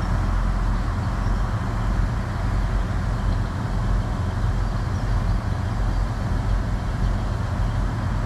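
Diesel multiple unit idling at a platform: a steady low engine rumble with a faint hiss above it.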